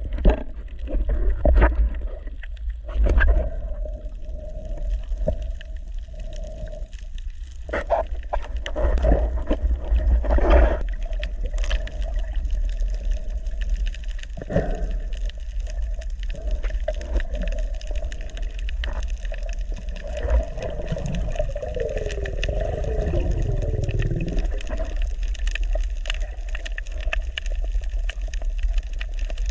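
Underwater sound on a scuba dive: a constant low rumble with bursts of gurgling bubbles every few seconds, the longest about twenty seconds in, typical of a diver's regulator exhausting breath.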